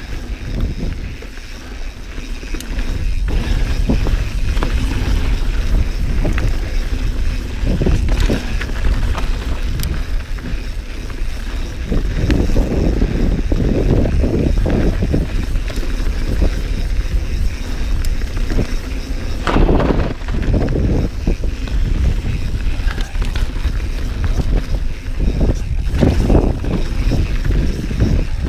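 Santa Cruz Bronson mountain bike being ridden on a dirt trail: tyres rolling and the bike rattling, over a steady low rumble of wind on the microphone. Louder stretches of clatter come and go irregularly.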